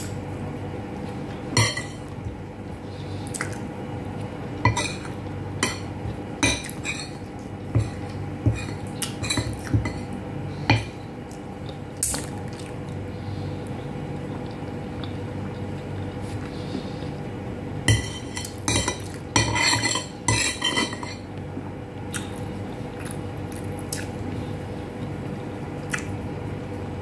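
Metal spoon and fork clinking and scraping on ceramic plates, in scattered clicks and short clusters, over a steady low hum.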